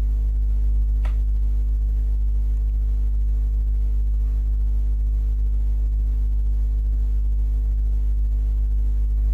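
Steady low electrical hum, with a stack of even overtones above it, picked up by the recording microphone. There is a single sharp click about a second in.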